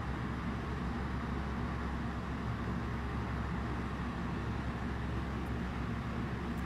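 Steady low rumble and hiss from inside a stationary car, with no distinct knocks or cart clatter.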